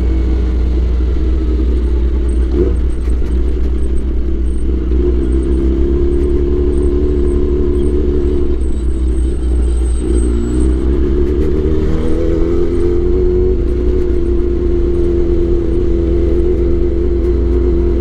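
Kawasaki Ninja ZX-10R's inline-four engine running under way at low speed. Its pitch falls over the first few seconds, rises as it accelerates about ten seconds in, then holds steady.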